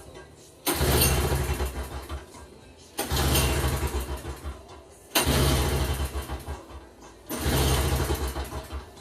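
Toro CCR2450 snowblower's 141cc two-stroke engine being cranked four times. Each attempt starts sharply and dies away after about a second and a half without the engine settling into running: a no-start after a new spark plug.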